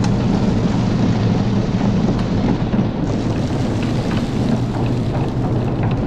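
Electric silo unloader and feed elevator running together: a steady low machine hum under a continuous rushing noise of high-moisture corn coming down the silo chute into the elevator.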